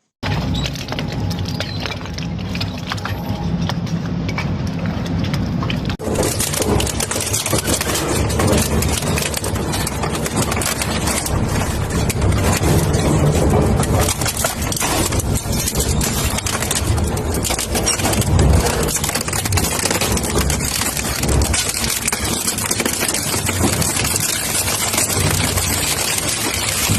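Hammer crusher running loudly: a steady motor drone under a dense, continuous clatter of material being smashed and broken. The noise changes character about six seconds in and stays loud after that.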